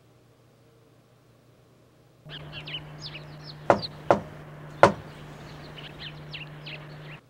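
About two seconds in, birds start chirping in the background, and a fist knocks on a door three times; the third knock comes after a slightly longer pause.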